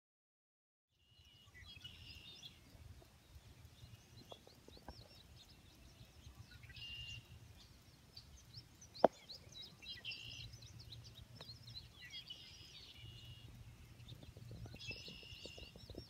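Faint rural outdoor ambience: birds singing in short repeated phrases with scattered chirps, over a low steady rumble. A single sharp click comes about nine seconds in, and the sound starts after about a second of silence.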